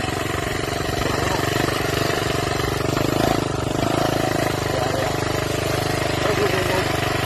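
Minibike's small engine running steadily at an even cruising speed, heard from the rider's seat.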